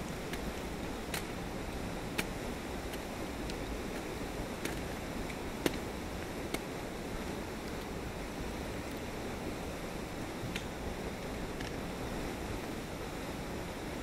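Ice-axe picks and crampon points striking waterfall ice in sharp clicks, about a dozen of them spread over the first eleven seconds, the loudest about six seconds in, over a steady rushing hiss.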